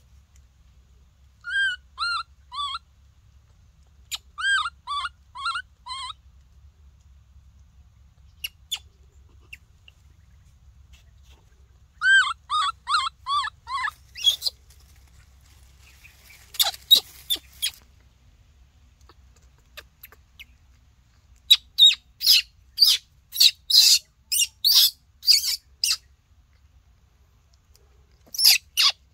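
Baby macaque calling: short runs of three to five rising-and-falling coos, then, in the second half, a quick run of shriller, harsher screeches.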